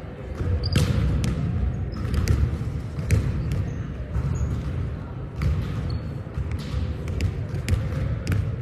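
Volleyball rally on a hardwood gym floor: several sharp hits of the ball, with short high squeaks of sneakers on the floor, over a steady low rumble of the hall.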